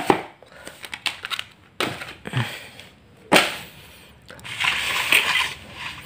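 Handling on a plastic tray on a tile floor: a few sharp knocks, then about a second of rustling and scraping as the packets are lifted off and the tray of boiled fish is moved.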